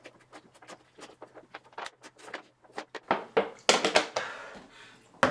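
A person gulping water from a 1.5-litre bottle in a fast run of short swallows, about five or six a second. From about three seconds in come louder, rougher gulps and gasps for breath.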